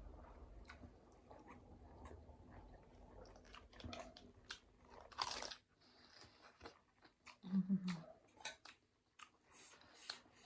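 Close-up mouth sounds of a person eating spicy instant noodles: chewing and crunching with scattered wet clicks, and a short low hum about three-quarters of the way through.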